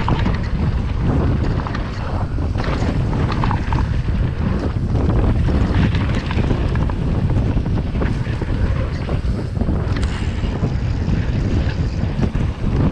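Wind rushing over the microphone of a downhill mountain bike descending a dirt track, with a steady rumble and frequent short knocks and rattles as the bike runs over bumps.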